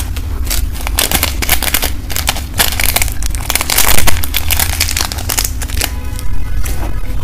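Close-miked crunching and chewing of fried food, with many irregular crisp crunches, and music underneath.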